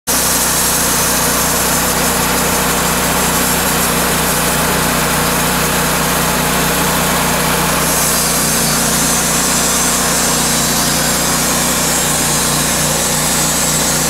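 Wood-Mizer portable band sawmill running steadily, its engine under load as the band blade saws lengthwise through a large oak log, with a constant high hiss from the cut.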